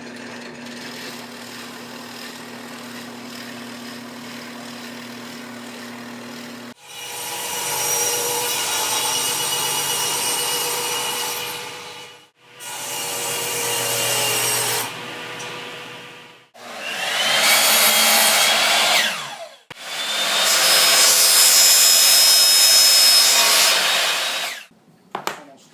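A power tool cutting into wood in four loud passes with short breaks between them, after several seconds of a steady motor hum.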